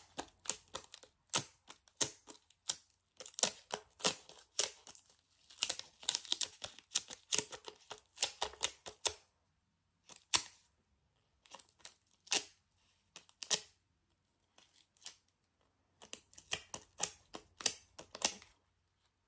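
Dust removal sticker dabbed again and again on an iPhone's rear camera glass, each press and lift giving quick, sharp little clicks and crackles. They come in dense runs, with a couple of short lulls partway through.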